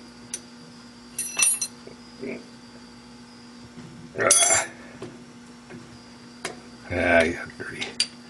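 Steel hex keys clinking and scraping against a lathe chuck and a metal cap as the cap, stuck tight on its mandrel, is pried at. The clinks come in a few scattered bursts with a ringing metallic tone, the loudest about four seconds in, over a steady low hum.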